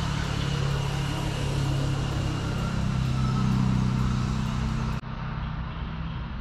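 A motor vehicle engine running steadily, a low hum that rises slightly in pitch partway through. About five seconds in there is an abrupt cut to a duller version of the same engine hum.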